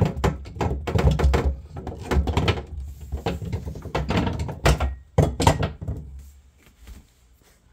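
Plastic refrigerator trays being fitted back into place: a run of knocks, clatters and thuds, with two sharper knocks about five seconds in, then it goes quiet.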